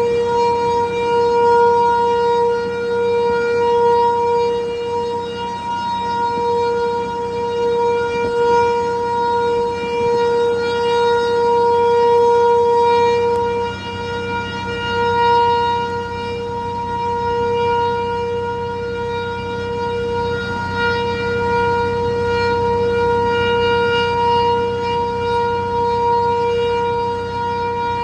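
Dam discharge-warning siren sounding one long tone at a steady pitch, the alarm given before a dam releases water.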